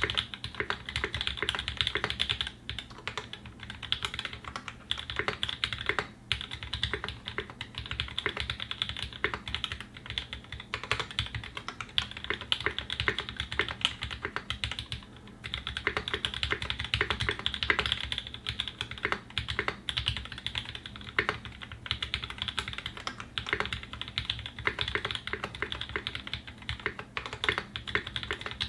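Continuous fast typing on a custom mechanical keyboard: a Singa 75 with polycarbonate case and brass plate, lubed Tangerine linear switches, lubed Zeal-clone stabilizers and GMK doubleshot ABS keycaps, giving rapid dense keystrokes. The typing breaks off briefly three times.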